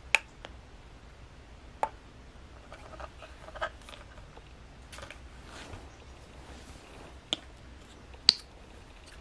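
A few sharp clicks and taps over a quiet background, the loudest near the end, from handling a handheld fetal Doppler as its probe is moved over the belly.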